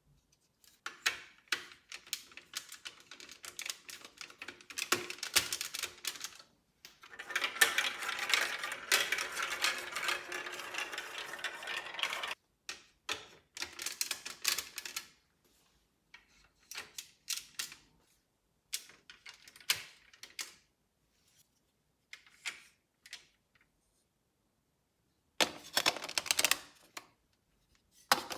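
Marbles rolling and clicking through a plastic LEGO Duplo marble run track: a dense stretch of steady rattling clatter a few seconds in, then scattered clicks and short rattles with brief pauses.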